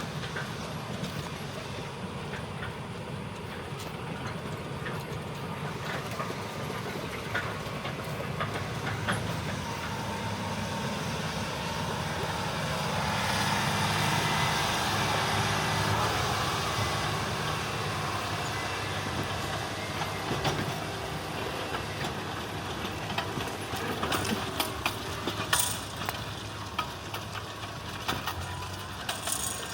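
John Deere 9360R tractor's diesel engine running steadily under load while pulling an 8-bottom moldboard plow, growing louder for several seconds around the middle. A few sharp knocks or clicks come near the end.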